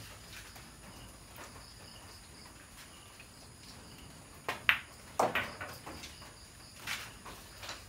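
Pool shot: a sharp click of the cue tip on the cue ball about four and a half seconds in, then the clack of balls colliding as the object ball is potted, with a few lighter knocks after. Crickets chirp steadily in the background.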